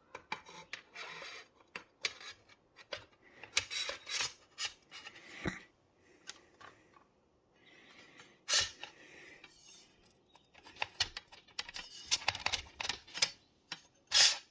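Hands working parts and cables into a small-form-factor PC case: irregular clicks and taps of plastic and metal, with a few short rustles.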